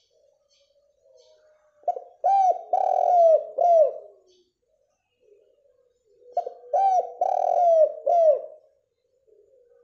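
Spotted dove (derkuku) cooing: two phrases of four or five short coos, each note dropping in pitch at its end, the first about two seconds in and the second about six seconds in.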